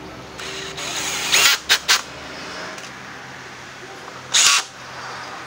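Makita cordless impact driver run in short trigger bursts on the screws of a scooter's plastic body panels: three quick bursts about a second and a half in, and one more about four and a half seconds in.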